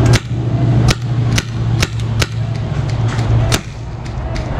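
Paintball marker firing single shots: about six sharp pops, irregularly spaced, over a steady low hum that fades out about three and a half seconds in.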